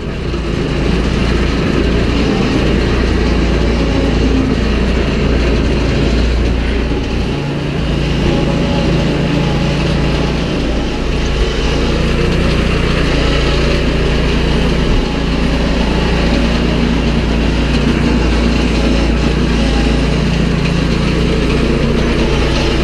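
Farm tractor running steadily while a feeder wagon unloads feed for cows, with the wagon's mechanism working throughout.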